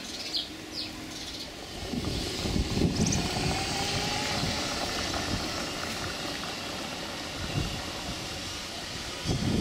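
Golf cart driving past, with wind gusting on the microphone from about two seconds in. A few short bird chirps are heard near the start.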